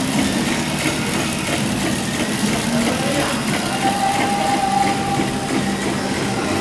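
DRC-65 cereal bar processing line running: a steady, continuous machine noise from its conveyor and drives. A brief steady tone sounds about four seconds in.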